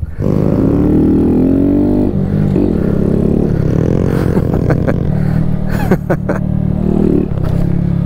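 Honda Grom's small single-cylinder motorcycle engine running under way, its revs rising and falling over a steady low drone.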